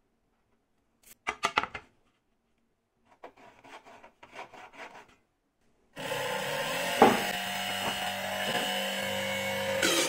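Marker scraping across a plywood sheet in short strokes, a quick cluster about a second in and fainter strokes a couple of seconds later. About six seconds in, louder background music with held tones starts abruptly.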